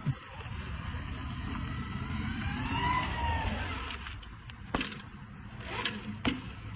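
A vehicle engine running with a low rumble, with a whine that rises and falls about halfway through and three sharp clicks or knocks in the last two seconds.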